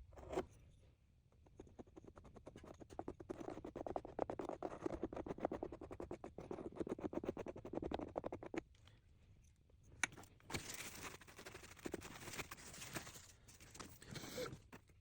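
Scratching and scraping from hands working on a football boot's cloth-tape patch: a dense run of quick small clicks for several seconds, then after a short pause a brighter, hissier scraping.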